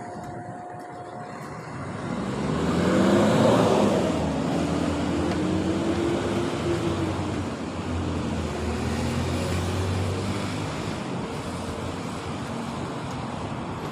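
A motor vehicle's engine nearby on the road: traffic noise swells to its loudest about three seconds in, then a steady low engine hum with a slowly gliding pitch carries on and eases off in the last few seconds.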